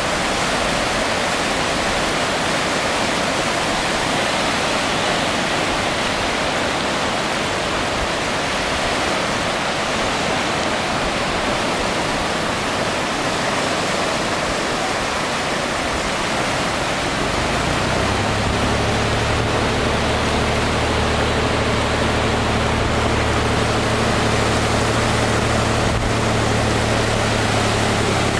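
Small waves breaking and washing onto a beach, a steady rush of surf. About two-thirds of the way through, a small outboard motor on an inflatable dinghy starts and keeps running at a steady low idle under the surf.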